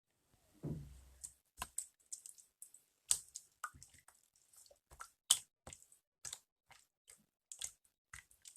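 Slime being squeezed and poked by hand, giving irregular wet clicks and small pops, with a dull knock about a second in.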